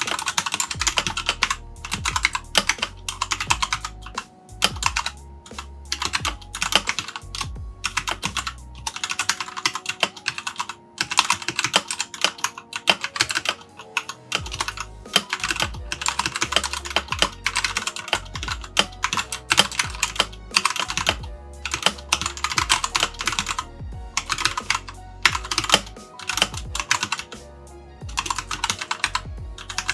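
Typing on a Keychron K4 mechanical keyboard with Gateron Brown switches and pudding PBT keycaps: fast runs of key clacks with short pauses between bursts. Background music plays underneath.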